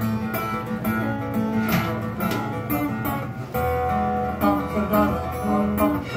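Acoustic guitar strummed and picked in a steady rhythm, an instrumental passage with no singing, heard through the venue's sound system.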